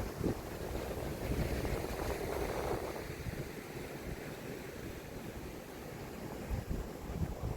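Wind gusting on the microphone in uneven low rumbles, over the wash of sea waves on the shore.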